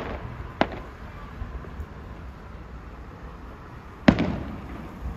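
Fireworks going off: a single sharp bang about half a second in, then a louder bang about four seconds in that trails away in a short rolling echo.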